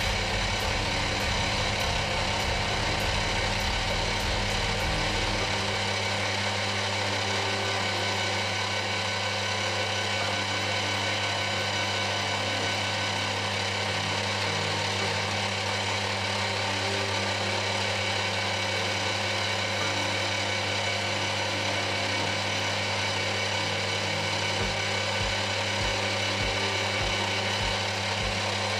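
A metalworking machine tool running steadily, giving a constant motor hum and gear whine. The deepest rumble drops away about five seconds in, and a faint low pulsing comes in near the end.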